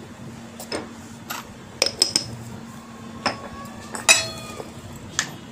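Light kitchen clinks and taps: a spoon tapping on a stainless steel bowl as spice powder is added, then a ceramic spice jar's lid being handled. The loudest clink, about four seconds in, rings briefly.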